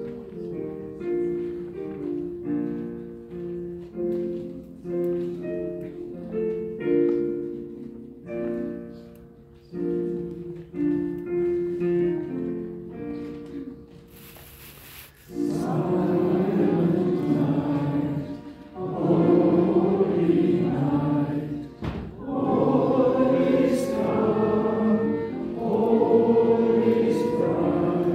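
A keyboard instrument plays the opening of a Christmas carol in chords that fade after each stroke. About halfway through, a roomful of voices comes in singing the carol together, much louder.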